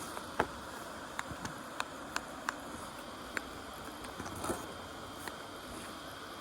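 Irregular sharp clicks and ticks, about eight at uneven intervals with a short rustle about four and a half seconds in, from bicycle parts and tools being handled while a punctured tyre is repaired, over a steady background hiss.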